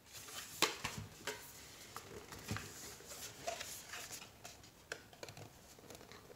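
Handling noise from a tight-fitting watch presentation box as hands grip and pull at its stuck lid: scattered small knocks, clicks and rubbing, the lid barely giving.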